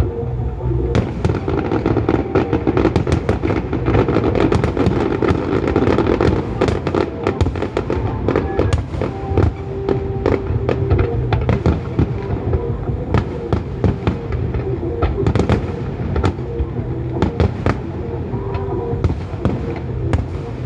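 Aerial fireworks display going off continuously in many rapid, irregular bangs and crackles, with music playing underneath.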